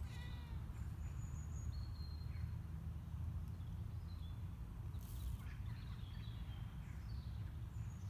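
Birds calling outdoors: short, high whistled notes and chirps at scattered moments, over a steady low rumble.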